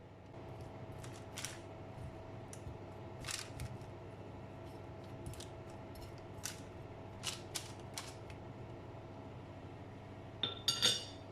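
Light clicks and taps of household items being handled, with a brief ringing clink near the end, over a steady faint hum.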